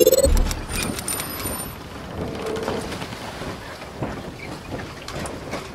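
Intro logo sound effects: a deep boom just after the start and brief high ringing tones in the first two seconds, then a steady noisy hiss with scattered crackles.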